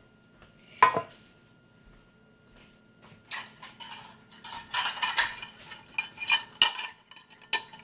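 Kitchen utensils clattering: a single sharp knock about a second in, then from about three seconds on a busy run of clinks and scrapes.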